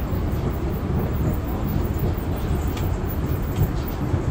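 A Schindler escalator running: a steady low mechanical rumble, with a few faint clicks in the second half.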